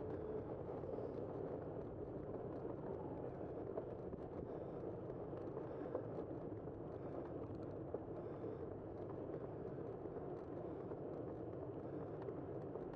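Steady rush of wind and road noise on a bicycle-mounted camera while riding along a street, with a few faint clicks.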